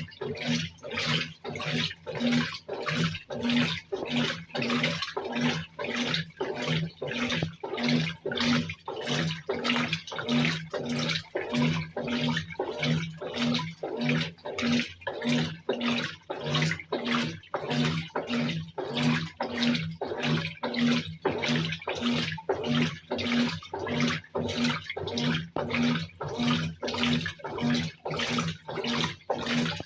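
Brastemp BWK17 top-load washing machine in its turbo-agitation wash stage: the agitator swishes the water-filled load back and forth in a steady rhythm of about three strokes every two seconds, each stroke with a low motor hum and a splash of water.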